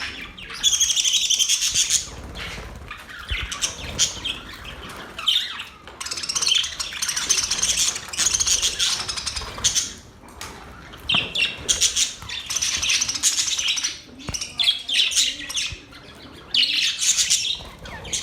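Budgerigars chattering and warbling in bursts of rapid, high chirps a second or two long, with short pauses between.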